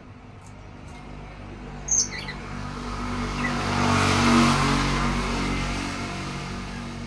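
A motor vehicle passes by, its engine and road noise swelling to a peak about four seconds in and then fading. A bird gives a short, sharp chirp about two seconds in.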